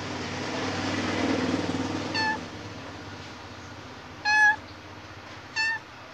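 Pregnant Khao Manee cat giving three short, high meows a second or two apart, the middle one loudest, after a rough, noisy stretch in the first two seconds. Repeated meowing like this is a sign of a queen close to giving birth.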